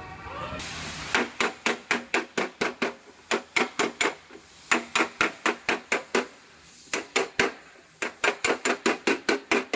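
Hammer striking the sheet metal of a pushed-in rear body panel, knocking out the dent: quick runs of sharp blows, about five a second, broken by short pauses.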